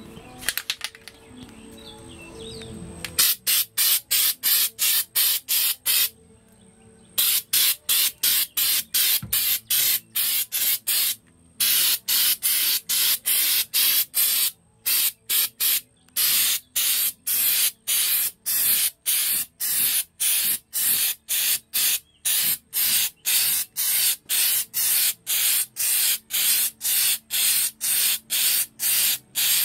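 Aerosol can of undercoating sprayed onto a truck floor pan in rapid short spurts, about three a second, starting about three seconds in and broken by a few brief pauses.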